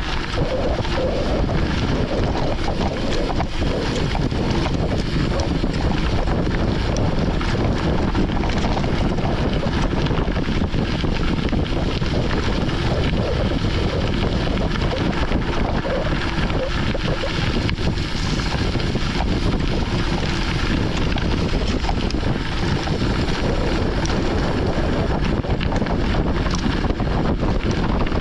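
Steady wind buffeting the microphone of a camera on a moving mountain bike, mixed with the rumble and rattle of the bike rolling over a dirt forest road.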